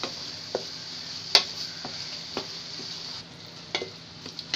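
Beef keema sizzling in a metal pot while a spatula stirs it, scraping and knocking against the pot in about six sharp clicks, the loudest about a second and a half in. The sizzling softens a little about three seconds in.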